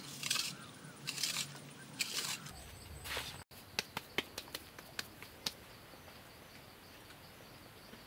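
Plastic trowel scraping across wet mud plaster in four slow strokes, then a run of short sharp clicks, then faint outdoor background.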